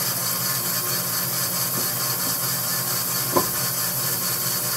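20-inch Jet bandsaw with a carbide-tipped Resaw King blade running steadily with no wood in the cut. A single short knock sounds about three and a half seconds in.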